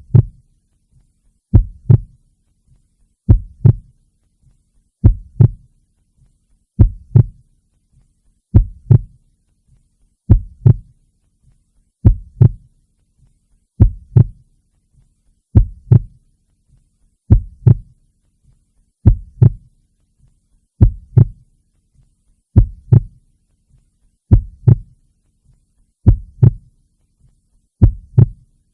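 Heartbeat, each beat a double thump (lub-dub), repeating slowly and evenly about once every 1.7 seconds.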